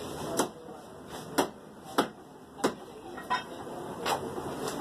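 Meat cleaver chopping mutton on a wooden log chopping block: seven sharp chops at an uneven pace, roughly one every two-thirds of a second.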